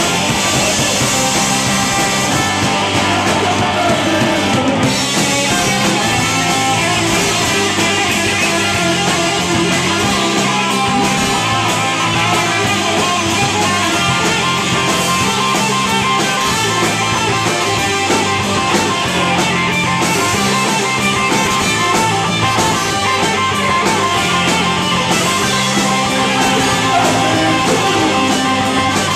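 Live rock band playing loudly and without a break: guitar driving over a full drum kit, including a miked bass drum.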